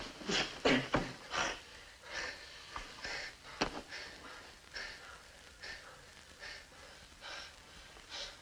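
Two people breathing hard in short, quick breaths, about two a second, while wrestling on a floor, with a brief thump about three and a half seconds in.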